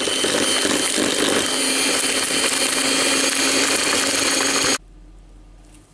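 Roadstar electric hand mixer running steadily at speed, its beaters creaming margarine and sugar in a bowl, a thin whine over the motor noise. It cuts off suddenly near the end.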